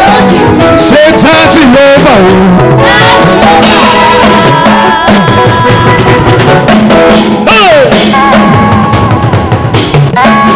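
Loud gospel praise music with a drum kit keeping the beat under held melodic notes.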